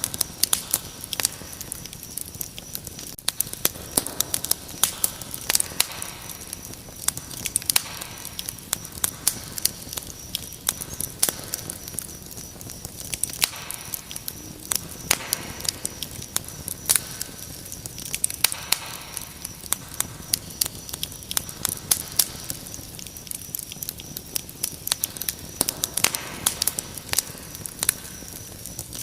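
Wood fire crackling, with frequent sharp pops and snaps, over a steady high trill of crickets.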